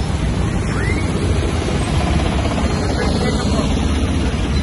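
Steady traffic noise from a busy street of motorbikes, tuk-tuks and cars, a continuous low rumble with no single standout event.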